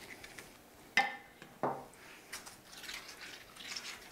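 A spoon knocking twice against a metal roasting pan while tomato sauce is spooned onto breaded cutlets, the first knock ringing briefly, with faint scraping and squishing of the sauce in between.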